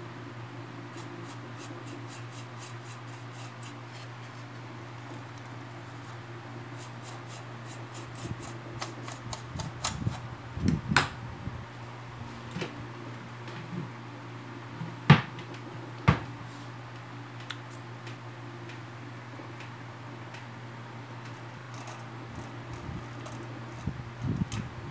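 Steady low hum under a scatter of light clicks and knocks from the steel levers of a dismantled dial bathroom scale being handled, with two sharp knocks about a second apart midway.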